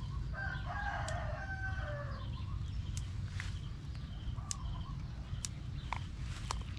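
A rooster crows once, starting about half a second in and lasting about two seconds. Scattered sharp clicks and rustling come from plant stems being picked by hand.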